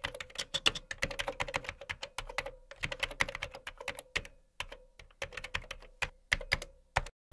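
Typing on a keyboard: rapid, irregular key clicks with a few short pauses, over a faint steady hum.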